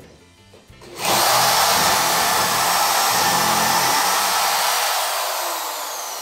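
Corded Bosch GSB 16 RE electric drill starting about a second in and boring a twist bit into a wooden board. Near the end it winds down with a falling whine as the bit is lifted out.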